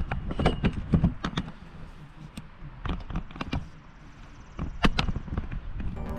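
Handling noise from a GoPro camera being set in place: irregular sharp clicks and knocks, several in the first second and a half and sparser after, over a low rumble that fades out early.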